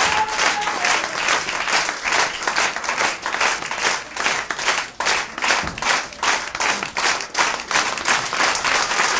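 Live audience applauding at the end of a cabaret song, the clapping falling into a steady rhythm of about four to five claps a second. A last held note dies away about a second in.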